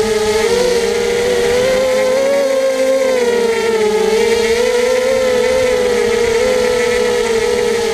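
ZMR250 quadcopter's four brushless motors (Cheerwing 2204 2300 kV) and propellers whining in flight, heard from the onboard camera. The pitch wavers up and down with the throttle, rising a little about half a second in and dipping around four seconds in.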